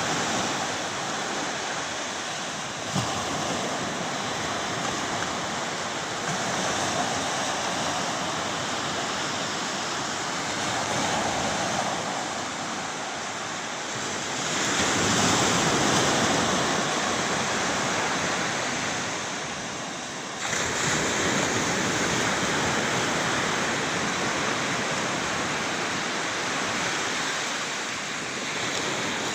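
Steady rushing noise of the surf-or-wind kind, swelling a little about halfway through, with a small click near the start and a sudden jump in level about twenty seconds in.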